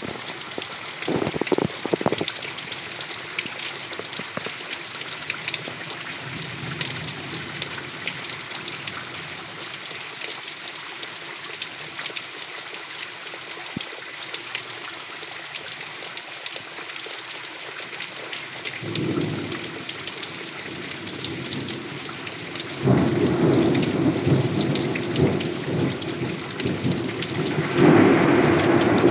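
Heavy rain falling steadily and splashing into standing puddles, with rumbles of thunder: a short one about a second in, another past the middle, and a long, loud roll through the last six seconds.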